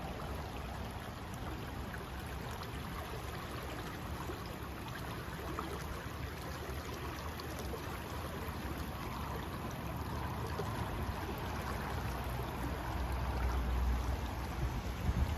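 Steady rushing noise of water, with a low rumble underneath that swells briefly near the end.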